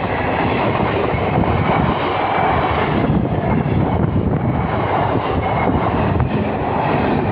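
Electric local passenger train passing close by at speed, coach after coach: a loud, steady rush of wheels on rails and moving air.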